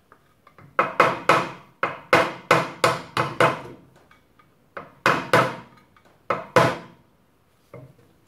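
Hammer striking a round punch to bend steel lock tabs over the rear sprocket nuts: a run of sharp, ringing taps in quick groups, with a last single tap near the end.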